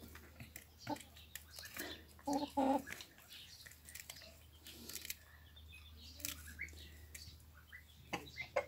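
Hens pecking at a hand-held cucumber: scattered sharp taps of beaks striking and tearing off pieces. Two short hen calls come a little over two seconds in.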